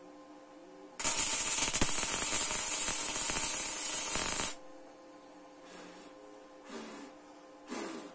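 Electric arc welding on steel: one continuous crackling weld run of about three and a half seconds, then three brief fainter bursts like short tack welds near the end.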